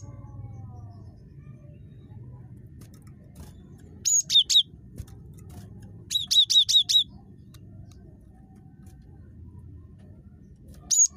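Cinereous tit calling in three short bursts of rapid, high repeated notes, each note sweeping down in pitch. A few notes come about four seconds in, a longer run of about six comes a couple of seconds later, and two or three more come near the end.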